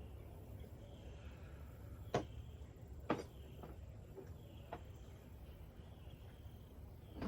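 Two sharp clicks about two and three seconds in, followed by a few fainter clicks, over a low steady background: hand tools being handled while a smaller wrench size is sought for the intake manifold bolts.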